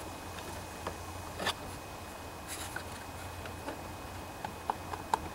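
Light clicks and scrapes of a plastic air cleaner case and gasket being handled and fitted onto a lawnmower engine's carburetor, the sharpest about one and a half seconds in, over a low steady hum.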